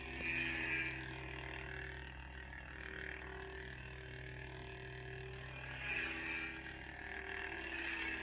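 Hasbro Force FX lightsaber's electronic blade hum from its sound module: a steady low drone that swells briefly near the start and again about six seconds in.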